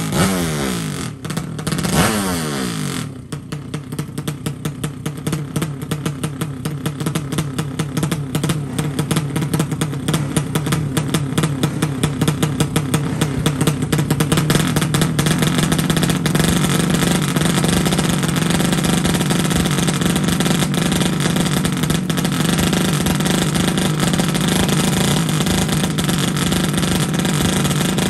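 200 cc horizontal-cylinder (sleep engine) drag bike's engine on the start line: two quick throttle blips, then revs held up, uneven and pulsing at first and settling into a steady high note by about halfway through, ready for the launch.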